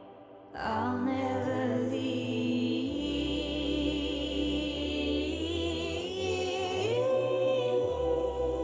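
Background pop song: a singer holds long, wavering notes over a low bass line, coming in about half a second in.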